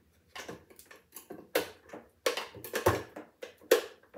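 Steel beaters of a hand mixer being pushed into their sockets and clinking against the mixer body and each other: a series of sharp clicks, the loudest near the end. The mixer is not yet running.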